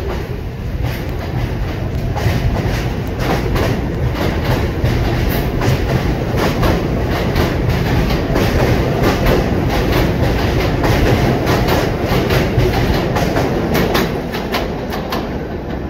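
R46 subway train departing along the elevated track: a loud, steady rumble of steel wheels with a rapid, irregular clatter of clicks over the rail joints. It builds over the first couple of seconds and eases a little once the last car has passed, near the end.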